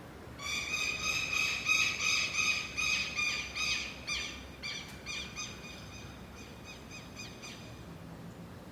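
A bird calling a fast series of repeated, ringing notes, several a second. The series is loudest at first and fades away over about seven seconds.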